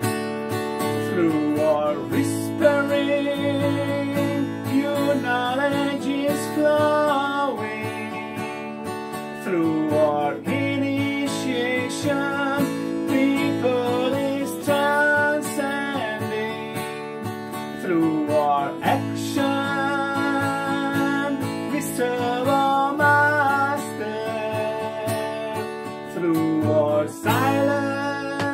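A man singing long, held phrases that slide into each note, over a strummed acoustic guitar, in A major.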